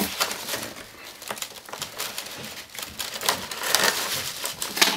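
Rustling and crackling of a clear plastic display case being handled among foam packing peanuts while the tape on it is cut with small scissors and pulled off, with many short irregular clicks and crinkles.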